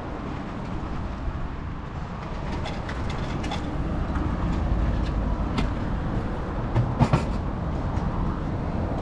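A steady low rumble of a passing vehicle that swells in the middle, with a few sharp clicks and knocks from handling the vending machine's metal delivery flap, the strongest about seven seconds in.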